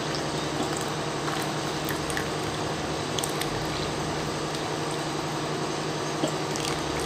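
Hot herbal decoction poured in a thin, steady stream into a glass tumbler, trickling as the glass fills, over a steady low hum.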